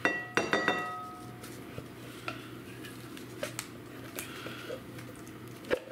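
A spatula knocking and scraping on an emptied tin can of pumpkin puree over a glass bowl: several ringing metallic clinks in the first second, then scattered light taps and scrapes, and a single knock near the end.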